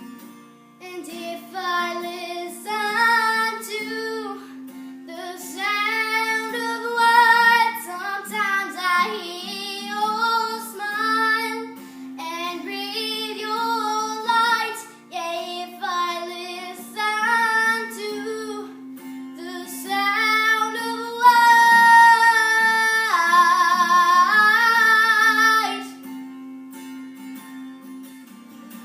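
A female voice singing a slow song over acoustic guitar, with long held notes and vibrato about two thirds of the way through.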